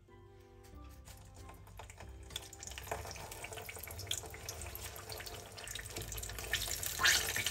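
Starch-coated ribbon fish pieces going into hot oil in a frying pan for their second fry: the oil starts sizzling and crackling about two seconds in and gets steadily louder, with a louder burst near the end as another piece goes in.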